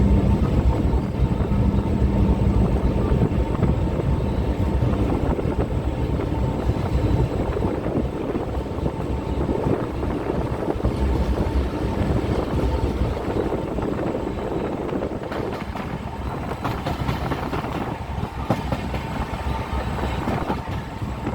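Train running on the rails: a steady heavy rumble with rail clatter that slowly fades, and a steady low hum for the first few seconds.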